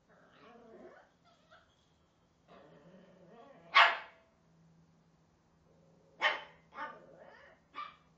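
Small Yorkshire terrier barking: four sharp barks, the loudest nearly four seconds in and another just after six seconds, then two weaker ones close behind. Quieter drawn-out sounds come before the first bark.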